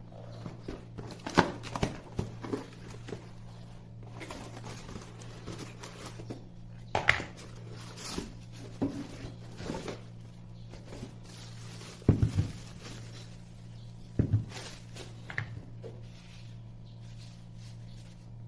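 Irregular knocks, clicks and rustling of things being handled, the loudest knocks about a second and a half in, around seven seconds, and twice more near twelve and fourteen seconds, over a steady low hum.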